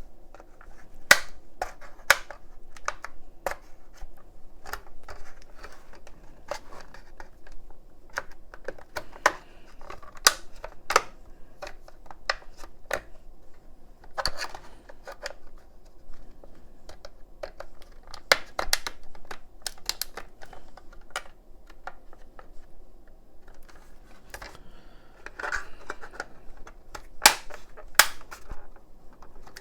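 Irregular sharp clicks and knocks as a PS5 ADP-400DR power supply's casing is worked loose with tools, the clips and edges snapping and tapping a few times a second.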